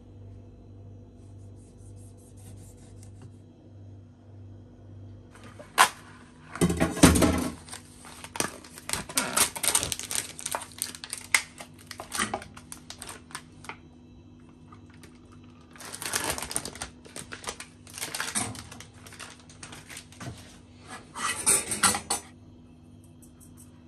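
Kitchen handling noises over a faint steady hum: a sharp knock about six seconds in, then several bursts of rapid clicking and crackling with clatter of bowls.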